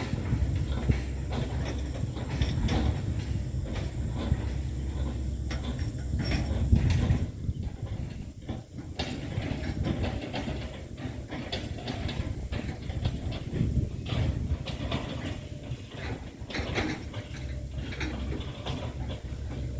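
Hitachi excavator's diesel engine running steadily under load, with repeated knocks and cracks as it chops up oil palm trunks.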